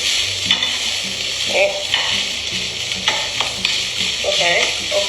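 Kimchi fried rice sizzling loudly in a hot pan, stirred and scraped with a spatula in repeated strokes about every second or so.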